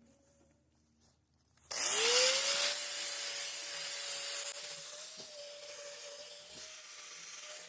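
A small electric power tool switched on about two seconds in: its motor whine rises quickly, then holds a steady pitch while the tool works a surface with a loud hiss that eases off after a couple of seconds.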